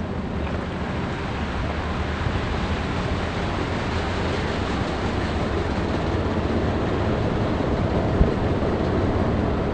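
Car engine and tyre noise heard from inside the cabin while driving along a rough street, a steady hum with a small knock about eight seconds in.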